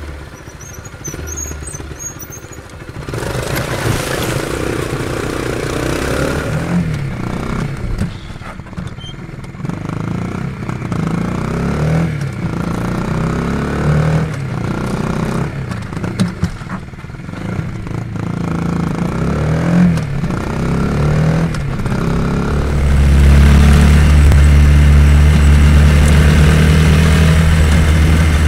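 Stock four-stroke 125 cc single-cylinder engine and unmodified exhaust of a Blata 125 BXM supermoto, heard onboard at low speed and mostly low revs in a run of short cuts. Several times the engine picks up and rises in pitch under acceleration, and near the end it runs steady and louder.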